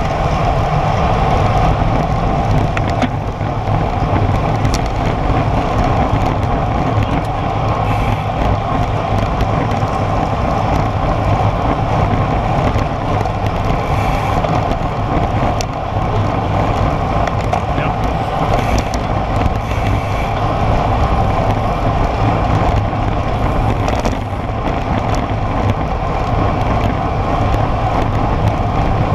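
Steady rush of wind over a bike-mounted action camera's microphone, mixed with the hum of road-bike tyres on asphalt at about 40 km/h.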